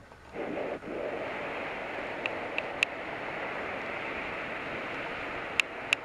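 Battery-powered motorized toy train engine running along its track: a steady whirring hum that settles in about a second in, with a few short sharp ticks.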